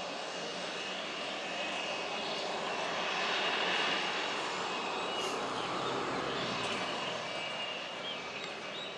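Embraer E-99's twin Rolls-Royce AE 3007 turbofans running as the jet rolls past on the runway: a steady rush with a thin high whine, swelling to its loudest about three to four seconds in and then easing off.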